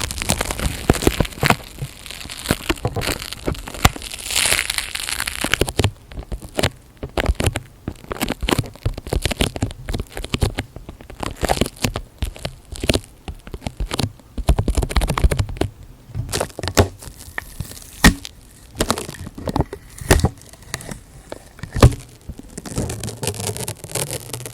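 Close-miked ASMR handling sounds: irregular crackling and crinkling, dense for about the first six seconds, then sparser sharp clicks and pops.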